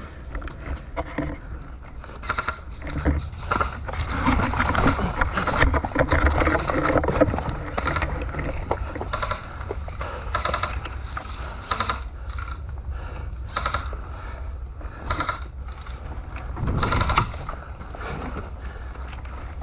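Scattered sharp clicks and knocks over rustling movement noise, with a louder stretch of rustle in the first half and a brief louder burst near the end.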